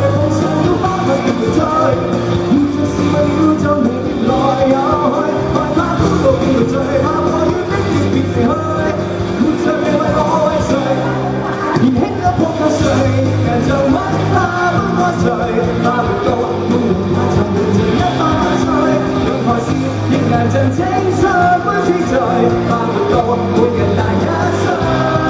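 A man singing a pop song live into a handheld microphone over backing music, both amplified through PA speakers.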